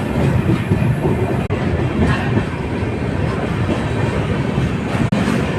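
Train running through a station, a steady loud rumble of wheels on rails with some clickety-clack. The sound cuts out for an instant twice.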